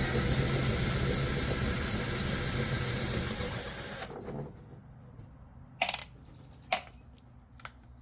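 A power tool, likely a drill driving out one of the hood scoop's long bolts, runs steadily for about four seconds and then stops. Two sharp clicks follow near the end.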